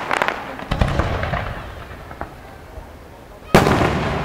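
Fireworks exploding in the sky: a quick run of crackling pops at the start, a bang with a low boom just under a second in that fades into crackle, then a louder bang with a rumbling boom about three and a half seconds in.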